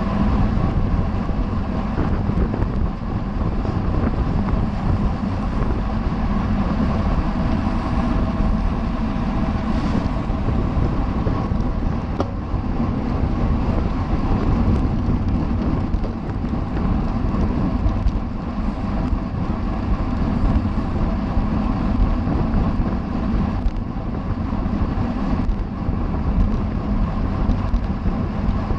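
Steady, loud wind rush buffeting the microphone of a camera riding on a racing bicycle at speed, with the bike's rolling noise underneath.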